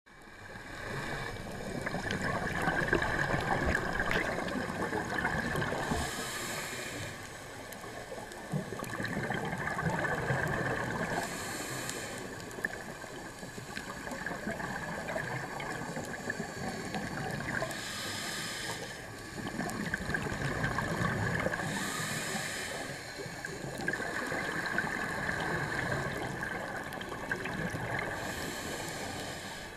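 Scuba diver breathing through a regulator, heard underwater: long inhalations alternating with short gurgling bursts of exhaled bubbles, about every five to six seconds, five breaths in all.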